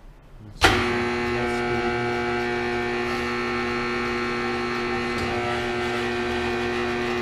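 Hardinge HLV-H toolroom lathe starting abruptly about half a second in. Its spindle and drive then run at a steady speed, with a hum and several steady whining tones.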